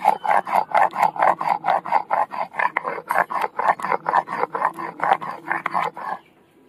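Stone roller of a shil-nora rubbing back and forth over the flat grinding stone, grinding shelled green peas into a fine paste. It is a rapid, even rasp at about four strokes a second that stops about six seconds in.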